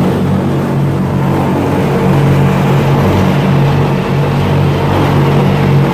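Amphibious duck boat's engine running steadily, a constant low drone heard from aboard.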